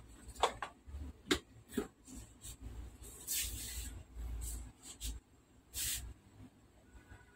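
Handling noises at a workbench: several sharp clicks and knocks of cables and tools being moved, then two short hissing rustles, the first lasting about a second and the second near the end.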